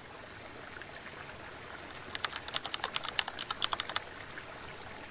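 Rapid, uneven keyboard-typing clicks, about a dozen in two seconds, starting about two seconds in, over a faint steady hiss.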